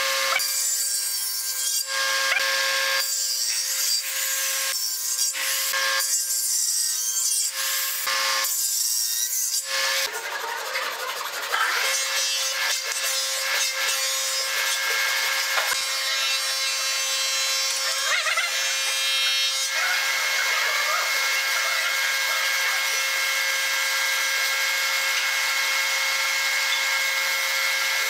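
A table saw cutting a curved pine workpiece in several separate passes over a steady motor hum, then, from about ten seconds in, a hand saw working back and forth through a small pine block, with the machine hum still running underneath.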